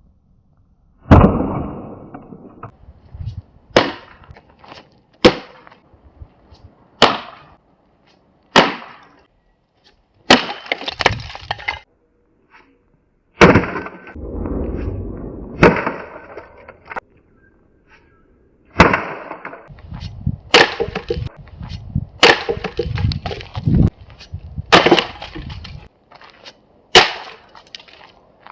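An axe striking a panel of thin tongue-and-groove wooden boards again and again, about a dozen sharp blows a second or two apart, each followed by the wood cracking and splintering and broken pieces clattering.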